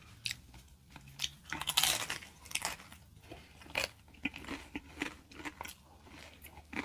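A person biting and chewing crunchy fast food close to the microphone, with irregular crunches, loudest about two seconds in.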